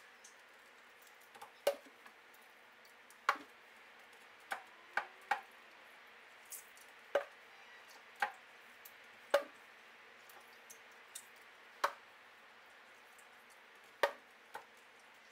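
Lemon wedges being squeezed by hand into a glass jug: about a dozen sharp knocks and clicks at irregular intervals, roughly one a second, as the wedges are handled and dropped in.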